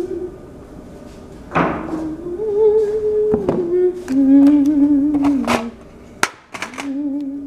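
A person humming a slow tune in long held notes, with several knocks and clicks in between.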